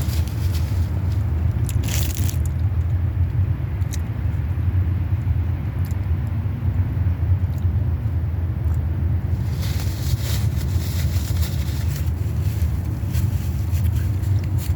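Close-up chewing and crunching of someone eating fast food, with scattered bites and mouth clicks, the strongest about two seconds in and a cluster near the end, over a steady low rumble.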